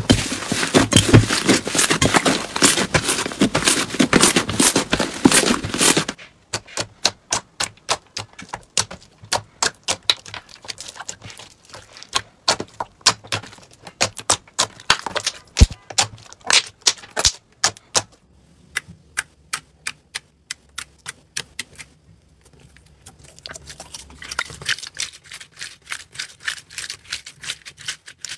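Hands kneading and pressing slime. Dense crackling for about six seconds gives way to a run of sharp, separate clicks and pops, then a quieter stretch, and softer crackling returns near the end.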